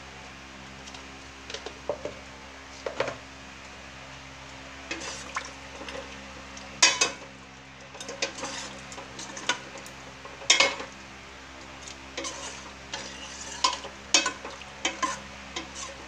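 Spatula stirring chicken pieces in sauce in a stainless steel pot, with irregular scrapes and knocks against the pot, the loudest about seven and ten and a half seconds in, over a steady low hum.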